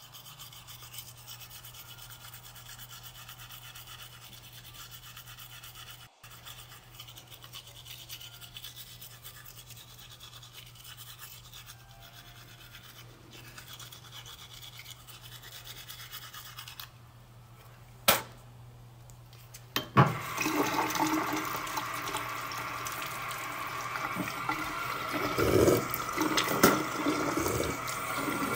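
Manual toothbrush scrubbing teeth, quiet and steady over a low hum. A sharp click about two-thirds of the way through, then tap water running into the sink while the brushing goes on.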